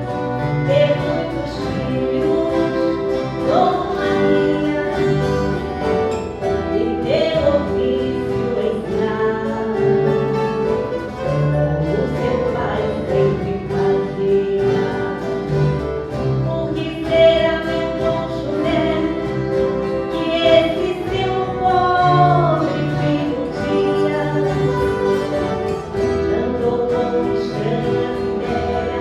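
Viola caipira orchestra playing a slow song with voices singing the melody over the strummed and plucked violas.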